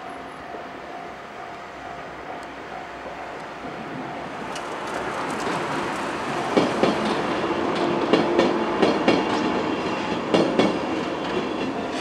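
103 series electric train passing over a level crossing: its running noise builds from about four seconds in, and its wheels clack sharply over the rail joints in clusters through the second half. A level-crossing warning bell rings steadily throughout.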